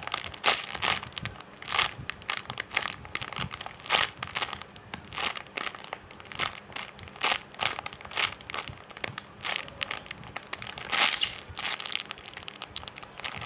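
Plastic bag crinkling as a squishy toy inside it is squeezed again and again, in irregular crackles.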